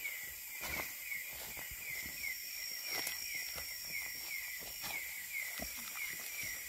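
Night insects calling: one keeps up a short, high chirp about three times a second over the steady high buzz of another. Footsteps and rustling through grass and undergrowth sound irregularly on top.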